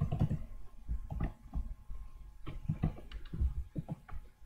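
Typing on a computer keyboard: a run of irregularly spaced keystroke clicks.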